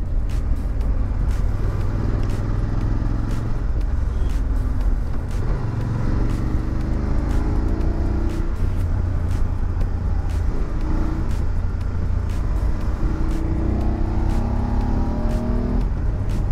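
BMW F850 GS Adventure's parallel-twin engine running under way with a steady low wind rumble, its pitch rising a couple of times as the motorcycle accelerates.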